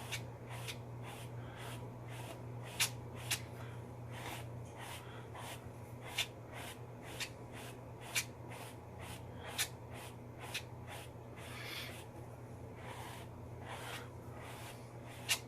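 Small brush stroking through a damp beard: a steady run of short bristle swishes, about one or two a second, over a steady low hum.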